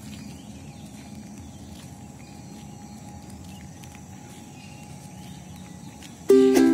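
Faint outdoor ambience with a few small scattered sounds; about six seconds in, ukulele music starts abruptly and is far louder than the ambience.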